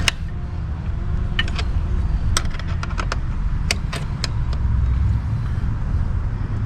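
A wrench and bolt hardware clinking: about a dozen sharp, irregular metal clicks over a steady low rumble.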